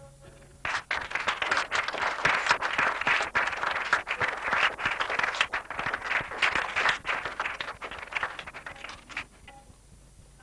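A small audience applauding. The clapping starts about a second in and dies away near the end.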